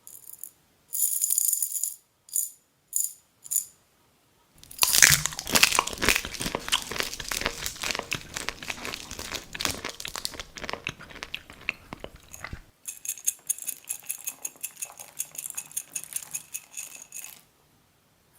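Close-miked crunching and crinkling of food being handled and eaten. A few short sharp crackles come first, then a long dense run of crunching, then a faster, brighter rustle near the end.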